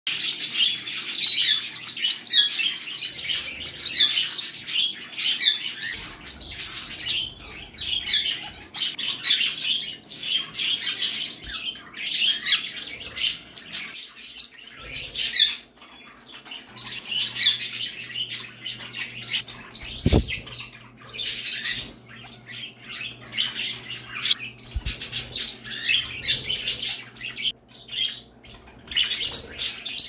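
A room full of pet birds, small parrots such as budgies, cockatiels and parakeets along with finches, chirping and twittering all at once in a dense, overlapping chatter. There is a single knock about two-thirds of the way through.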